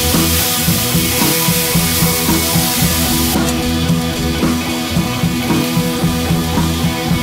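Background music with drums and guitar over a steady beat.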